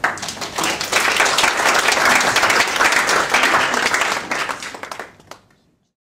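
Audience applauding: a dense patter of many hands clapping that starts at once, holds steady, then thins out and dies away about five seconds in.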